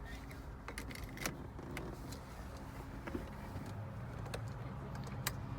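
A car engine idling faintly and steadily, with a scattering of short sharp clicks.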